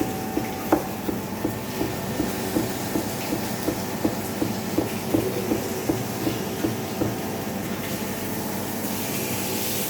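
Kitchen knife chopping carrots into julienne strips on a chopping board: a steady run of knocks, about two to three a second, that stops near the end.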